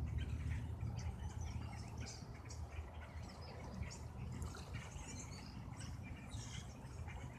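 Songbirds chirping in many short, scattered calls over a steady low rumble.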